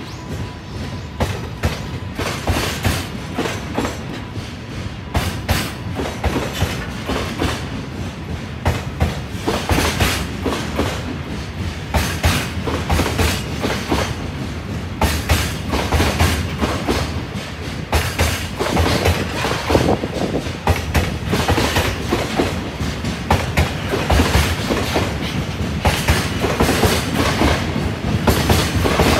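Freight train container wagons rolling past, their wheels knocking over rail joints in a continuous run of clacks.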